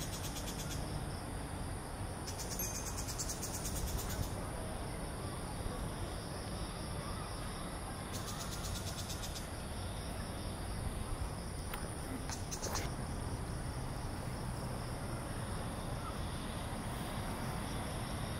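Insects calling outdoors: a steady high-pitched drone with several bursts of fast pulsing trills, each lasting a second or so, over a low rumble of outdoor background noise.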